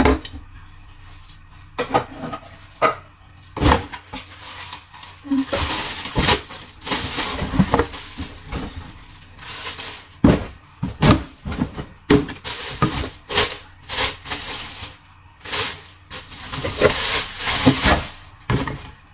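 Plastic wrapping crinkling and rustling as a granite-coated cooking pot is unwrapped by hand, with a few sharp knocks of the pot and its glass lid being handled.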